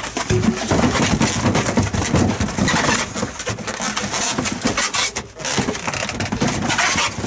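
Long inflated modelling balloons rubbing, squeaking and batting against each other as they are swung together like swords.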